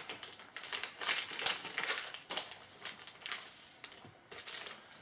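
Crinkling and rustling of a trading card pack wrapper and cards being handled: a run of short crinkles and rustles with small clicks.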